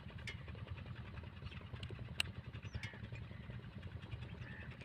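Steady low outdoor rumble, with one sharp click about two seconds in and a few faint bird calls.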